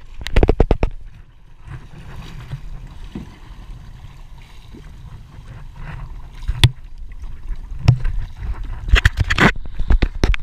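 Kayak paddling on open sea water: a steady low wind rumble on the microphone, with short bursts of paddle splashing and knocks in the first second and again several times from about six and a half to nine and a half seconds in.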